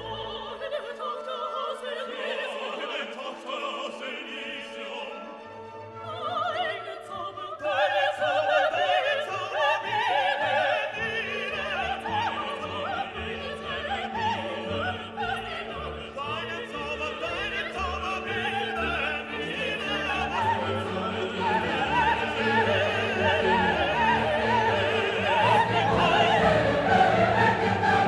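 Background classical music: an orchestra with operatic singing, growing louder about seven seconds in.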